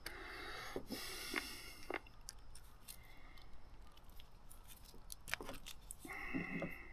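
Faint scattered clicks and scraping of a screwdriver tightening a small hose clamp on a boat fuel line at the rubber primer bulb. A brief squeak comes near the end.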